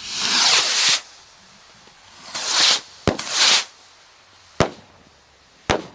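Three Mad Hornet July 4th stick rockets launching together, each taking off with a rushing whoosh: one at the start and two more a couple of seconds in. Three sharp bangs follow as they burst, one about three seconds in and two near the end.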